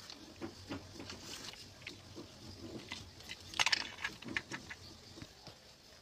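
Handling noise of a small plastic Bluetooth speaker being reassembled: scattered light clicks and rustling as the circuit board and its wires are pressed into the plastic housing, with a louder cluster of clicks about three and a half seconds in.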